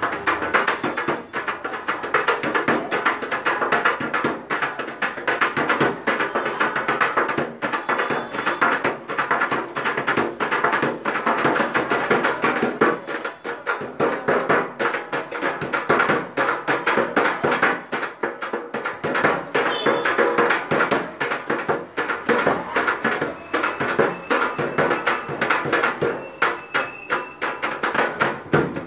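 Tamate (temte), a Kannada frame drum, played in fast, continuous strokes.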